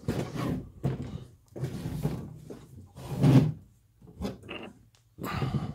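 The rusty metal chassis of an Akai S1000 sampler being turned around and shifted by hand on a bench: a run of about six short scraping, rubbing clunks, the loudest a little past halfway.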